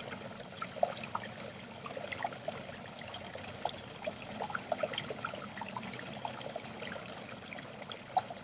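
Water running from a tap and trickling into a sink, a steady splashing made of many small drops and splashes at varying pitch.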